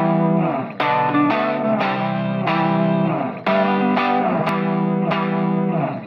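Background music led by a guitar played through effects, chords struck in a steady rhythm.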